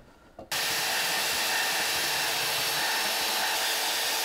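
Milwaukee Portaband metal-cutting band saw running steadily, its blade cutting through a sheet of scrap steel. The sound starts abruptly about half a second in.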